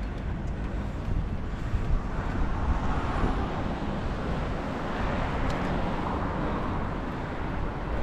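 Wind noise on the microphone of a camera on a bicycle being ridden, over a steady rush of road noise from tyres on a wet city street. The rush grows a little louder in the middle.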